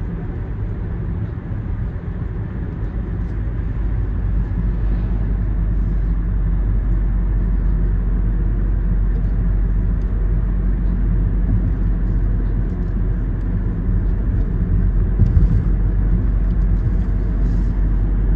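Car driving along a road, heard from inside the cabin: steady low engine and tyre rumble that grows louder over the first few seconds, then holds.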